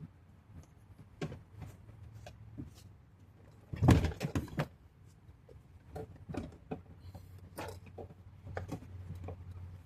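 Irregular clicks, taps and knocks of parts being handled and fitted inside a car door, with a quick cluster of louder knocks about four seconds in.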